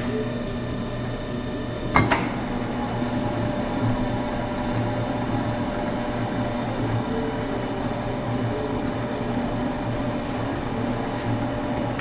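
Hobart V-1401 140-quart commercial floor mixer running with a steady motor and gearbox hum. Sharp metallic clunks sound from the speed lever being worked, about two seconds in and again at the end.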